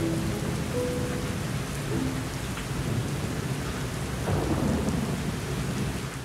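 Steady rain with a low roll of thunder a little past the middle, over a few soft held music notes that die away in the first couple of seconds. The sound fades out at the very end.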